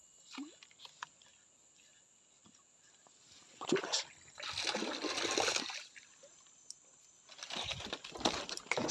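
River water splashing and sloshing in a few bouts, the longest lasting about a second midway, then a run of clicks and rustles near the end.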